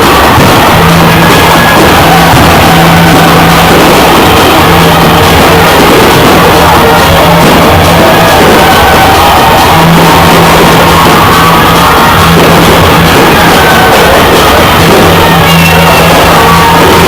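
Loud music, with a crowd shouting over it.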